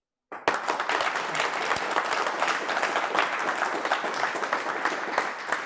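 Audience applauding, starting abruptly about half a second in.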